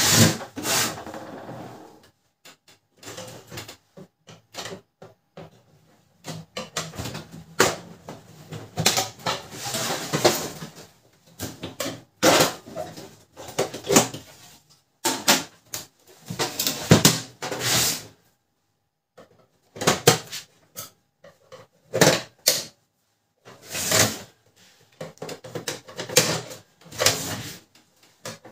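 Hand disassembly of a Canon LBP2900 laser printer's plastic casing: screws being undone and cover panels handled and pulled off, giving irregular clicks, scrapes and knocks of tools on plastic.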